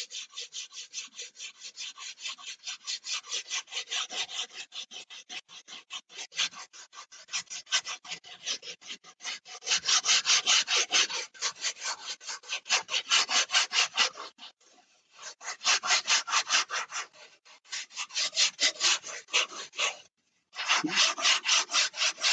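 Sandpaper rubbed by hand back and forth along the edge of a foam model-airplane wing, about four quick scratchy strokes a second. The strokes stop briefly twice, about two-thirds of the way in and again near the end.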